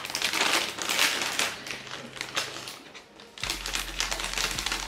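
Plastic snack bag of Bacon Bites crinkling on and off as it is handled.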